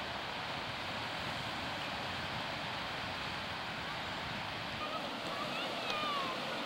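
Steady rushing wash of small surf waves breaking along the shore.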